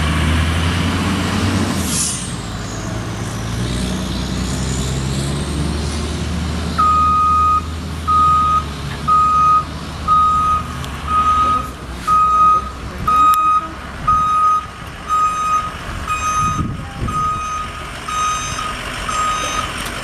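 Ambulance engine running low, then from about seven seconds in its backup alarm beeping steadily, about one beep a second, as it reverses.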